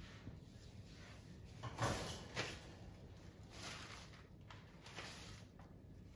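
Faint rustling and scraping as a folded umbrella is picked up and its fabric shaken loose, in a few short swishes, the loudest about two seconds in.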